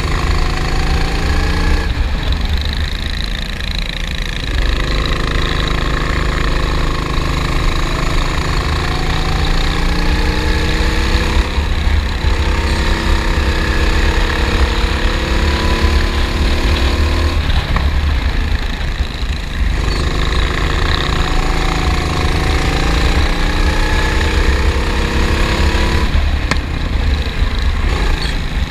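Onboard sound of a racing kart's engine at full throttle. The pitch climbs steadily down each straight and drops away when the throttle is lifted for the corners, four times: about two seconds in, twice around the middle, and near the end.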